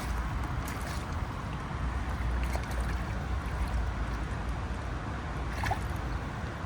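Fast-flowing shallow stream running steadily, a continuous rushing noise with a few faint clicks.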